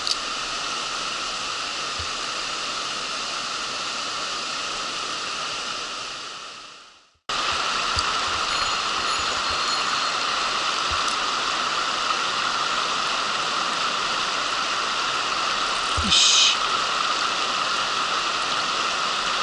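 Mountain stream water running over rocks in a steady rush. The sound fades out about seven seconds in and cuts back in abruptly. A brief, sharper burst of noise comes about sixteen seconds in.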